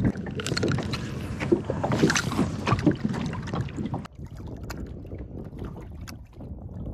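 Wind on the microphone and water lapping at a kayak hull on choppy open water, with irregular knocks and rubs from a fishing rod and spinning reel being handled. It drops suddenly quieter about four seconds in.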